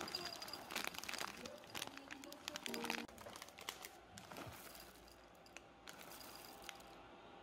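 Dark chocolate chips poured into a ceramic bowl onto white chocolate and butter, a dense clatter of small clicks for the first few seconds, then scattered ticks as the pour tails off.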